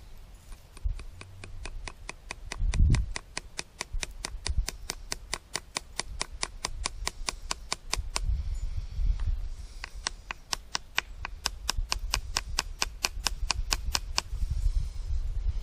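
Rapid, light hammer taps, about five a second, driving small pins in at either end of a field sharpening stone's mount. There are two long runs of tapping with a short break about eight seconds in.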